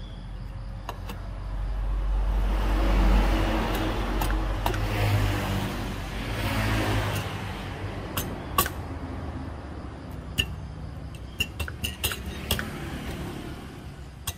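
A motor vehicle passes by, its noise swelling and fading over several seconds, then a run of light metal clinks as a scooter engine's cylinder block and parts are handled and pressed into place.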